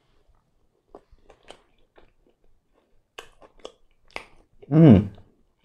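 Close-miked chewing of a bite of pan pizza, with small wet smacks and crunches of the crust. Near the end comes one loud, short hum that falls in pitch.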